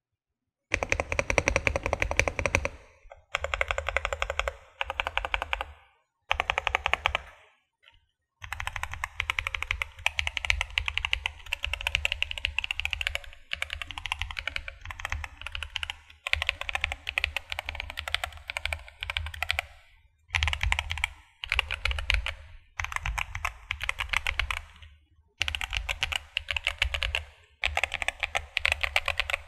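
Fast typing on a DK75 mechanical keyboard with Holy Panda tactile switches and PBT double-shot Cherry-profile keycaps: rapid runs of key clacks. The typing comes in bursts of a few seconds, with brief pauses between them, the longest run lasting about twelve seconds.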